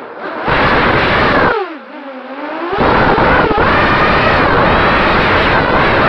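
Walkera F210 racing quadcopter's motors and propellers whining, the pitch rising and falling with the throttle. About one and a half seconds in the whine drops lower and quieter as the throttle is eased off, then comes back at full power near three seconds.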